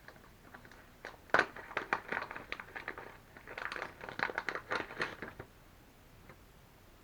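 Plastic tackle packaging crinkling and rustling in the hands as a jig is taken out of its pack, a quick run of small crackles and clicks that stops about five and a half seconds in.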